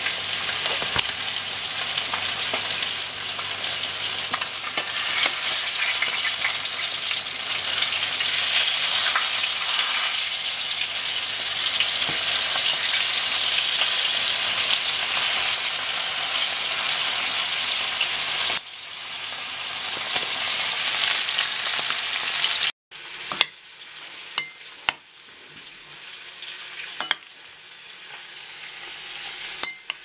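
Flour-coated fish fillets frying in hot oil in a frying pan: a loud, steady sizzle that drops to a quieter sizzle a little over halfway through, with a few sharp clicks near the end.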